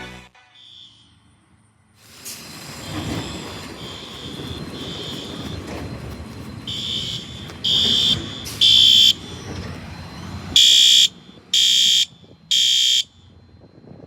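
Fire alarm horns sounding the temporal-three evacuation pattern during a fire alarm system test. Half-second high beeps come in groups of three with a pause between groups; the first beeps are faint, and the last three, from about ten and a half seconds in, are loud and clear. A steady rushing background noise runs under the first two-thirds.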